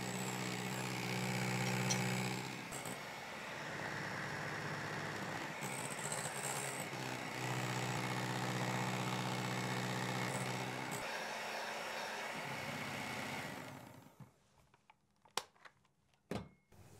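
Electric hand mixer running steadily, its beaters whipping eggs and sugar into a sponge-cake batter. The motor stops about 14 seconds in, followed by a few light knocks.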